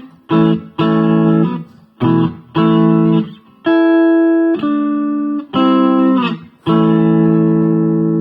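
Electric guitar played through an Ibanez TBX30R guitar amplifier: a run of loud chords, each held briefly and then cut short, with short gaps between them.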